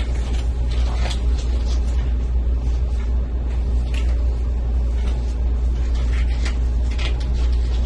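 A steady low hum, with faint, scattered crinkles and snaps of thin disposable gloves being pulled onto the hands.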